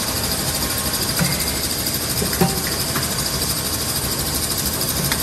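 Automatic inline piston filling and screw capping machine for oil bottles running: a steady mechanical hum and hiss, broken by a few sharp clicks and knocks from its pneumatic actions.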